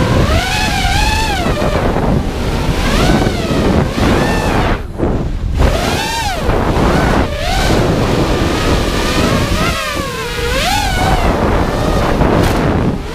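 FPV freestyle quadcopter's brushless motors and propellers whining, the pitch sweeping up and down as the throttle is punched and chopped, with a brief drop-off about five seconds in and again near ten seconds. Wind rushes over the onboard camera's microphone.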